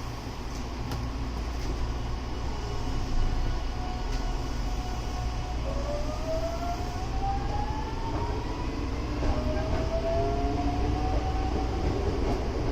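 Hankyu 8040 series train under way, its Toshiba GTO-VVVF inverter whining over the rumble of the wheels on the rail. The whine holds steady pitches at first, then begins rising about six seconds in and starts a second rise a few seconds later.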